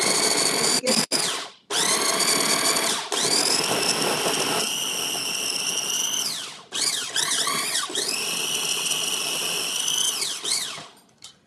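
Food processor motor running in several long pulses, chopping beets and horseradish into beet horseradish, with a whine that falls away each time it stops.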